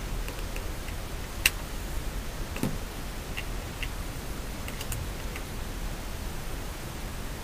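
Small clicks of buttons being pressed on a compact digital camera handled in gloved hands: a scatter of light clicks, one sharper click about a second and a half in, and a duller knock a little later.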